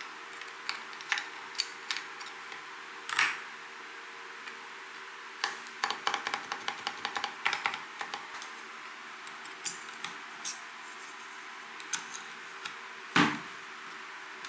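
Typing on an Mstone Groove T87A mechanical keyboard with silent 45 g Milky switches: scattered single keystrokes, a quick run of keys in the middle, and two louder, heavier key strikes about 3 seconds in and near the end.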